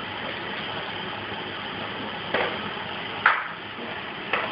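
Scallops, garlic and thyme sizzling steadily in a hot frying pan, with three sharp metal clinks of a utensil against the pans, the loudest about three seconds in.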